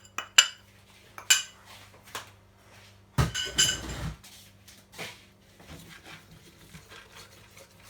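A metal spoon clinking against a bowl a few times, then about three seconds in a louder second-long scraping and handling noise, followed by faint scattered taps.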